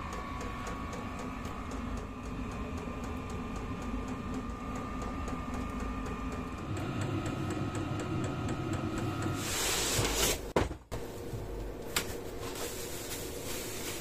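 VEVOR 8 kW diesel air heater running: a steady fan hum with light regular ticking, about four ticks a second, typical of its fuel pump. The hum shifts pitch about seven seconds in, and near ten seconds a loud rush of noise breaks in, followed by a sharp click and rustling.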